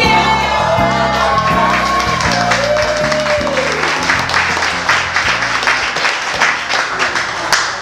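A small group applauding over music with a steady bass line; the clapping builds about two seconds in and fades just before the end.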